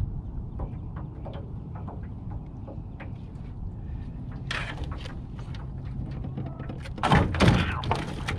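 Knocks and thuds on the metal floor of a small jon boat as a big catfish is set down and handled, loudest as a cluster of heavy thuds near the end.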